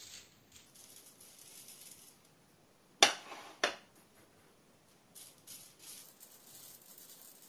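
Crushed almond granules rustling and pattering as they are scooped with a grater lid and pressed onto the side of a cake, with two sharp knocks about three seconds in, half a second apart.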